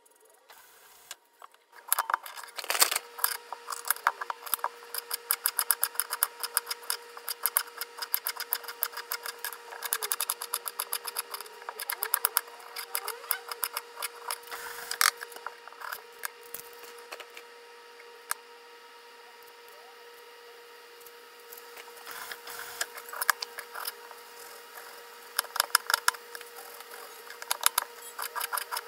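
Chef's knife chopping zucchini on a cutting board, quick repeated knocks of the blade striking the board, then, after a quieter pause, slicing an onion. A faint steady hum runs underneath.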